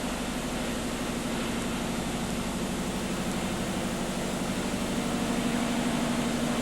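Steady machinery hum: a constant low drone with an even hiss over it, unchanging throughout.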